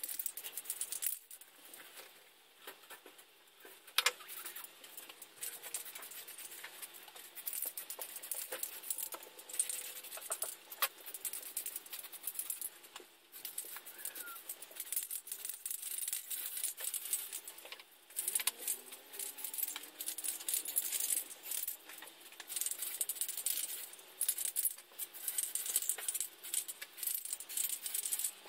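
Aerosol spray paint can hissing in repeated short bursts as hull-colour paint is sprayed over plastic model kit parts, with scattered clicks and rattles from the can.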